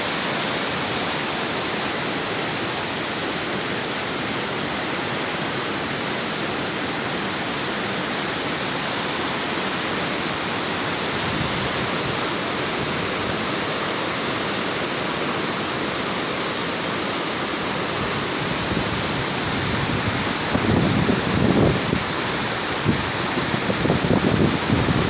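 Waterfall: a steady rush of falling water. From about twenty seconds in, uneven low buffeting from wind on the microphone joins it.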